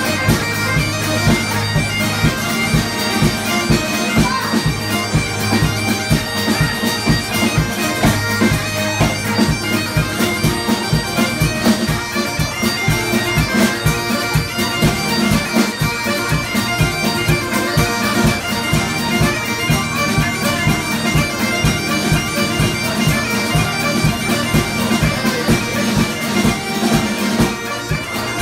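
Ceilidh band playing a traditional Scottish tune. Bagpipes carry the melody over their steady drones, with fiddle, piano accordion and a strummed acoustic guitar playing along.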